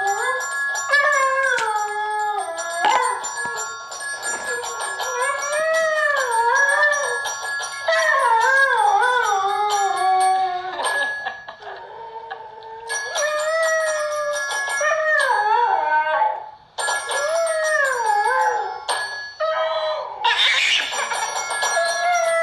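Dog howling in long, wavering calls that glide up and down in pitch, with a few short breaks, over faint background music.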